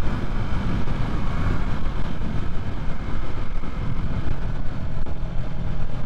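Yamaha MT-03 motorcycle being ridden, heard from the rider's helmet: steady wind rumble with the engine running underneath, its low note holding steady in the second half.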